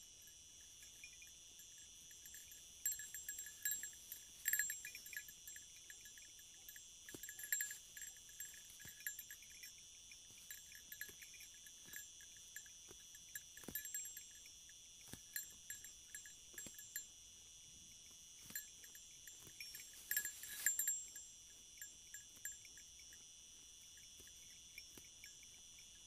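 Crickets chirring steadily at a high pitch, with irregular clusters of short, faintly ringing clicks. The clicks are loudest about four seconds in and again around twenty seconds in.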